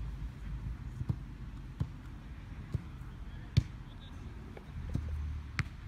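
A leather football being kicked and juggled: several short, sharp thuds of foot on ball a second or so apart, the loudest about three and a half seconds in.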